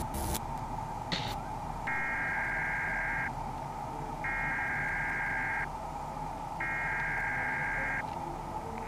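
Three long electronic alert beeps, about two and a half seconds apart, over a steady droning tone, like an emergency-broadcast warning signal at the opening of a music remix.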